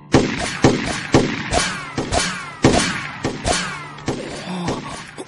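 A .308 FN FAL battle rifle fired in a rapid string of about ten shots, roughly two a second, each with a falling ring after it.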